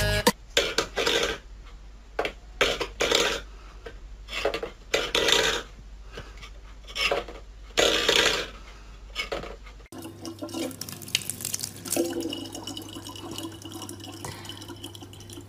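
Stainless-steel pet bowls clattering and scraping on a wooden floor as a cat knocks them about, in a run of irregular metallic clanks. About ten seconds in this gives way to a steady low hum, with water running from a thin tap.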